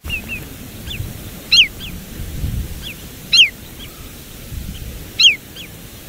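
Recorded flight call of a wader: a single sharp, metallic 'tchut' note, falling in pitch, given three times about two seconds apart. Fainter, shorter calls of other birds and a low background rumble sit beneath it.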